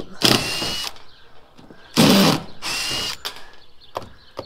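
Cordless driver backing the screws out of corrugated tin roof sheets, in two bursts: a short one at the start and a longer, louder one about two seconds in, its whine rising in pitch during each.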